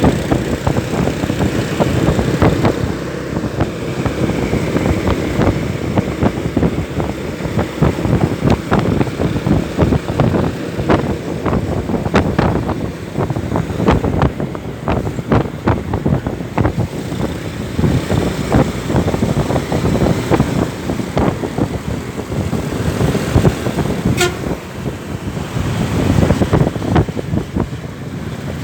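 Bus engine and road noise, loud throughout, with toots of a Basuri 'telolet' multi-note bus horn.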